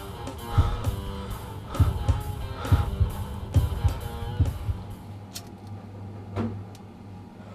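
Soundtrack music: guitar over a drum beat of about one hit a second, fading out about five seconds in. A low hum and a couple of faint clicks follow.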